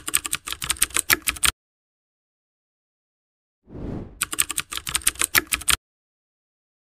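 Computer-keyboard typing sound effect: two quick runs of key clicks, about ten a second and each about a second and a half long, the second starting about four seconds in after a brief rising swell of noise.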